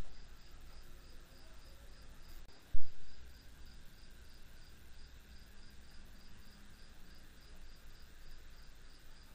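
A cricket chirping steadily, about four short high chirps a second. Two low thumps stand out above it, one right at the start and one a little under three seconds in.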